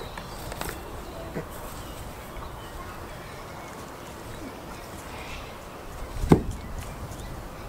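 A single sharp thump about six seconds in, over a low steady rumble, with a few faint clicks and knocks scattered through.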